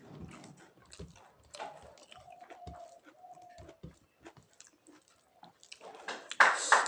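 Close-miked chewing of a rice, salad, papad and pumpkin meal, with small wet mouth clicks. A loud, noisy burst comes near the end.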